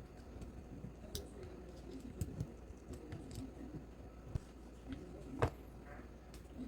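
Scattered small clicks and light knocks from handling the parts of a gas-blowback airsoft rifle during disassembly, irregular, with one sharper click about five and a half seconds in.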